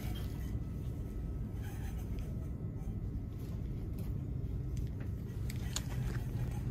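Steady low rumble of store background noise, with a few faint clicks about five and a half seconds in.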